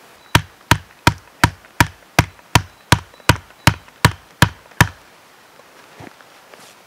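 A hatchet knocking a wooden tent stake into the ground: thirteen even blows, about three a second, stopping about five seconds in.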